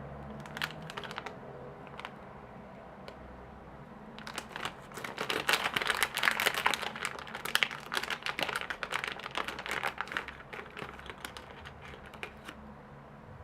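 Small tools of a repair opening tool kit being handled, with a flurry of rapid small clicks and crinkling. It starts with a few clicks, then grows into dense clicking from about four seconds in, fading out near the end.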